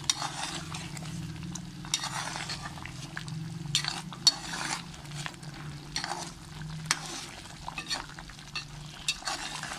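A slotted metal spoon stirring mutton and yogurt gravy in a metal pot, with repeated swishes and sharp clinks against the pot, the loudest about four seconds in. The gravy sizzles over a steady low hum.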